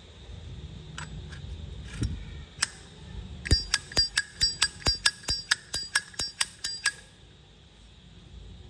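Zippo lighter's metal case clicking: a few separate clicks, then a quick run of about twenty sharp, ringing metallic clicks, roughly six a second, lasting about three seconds.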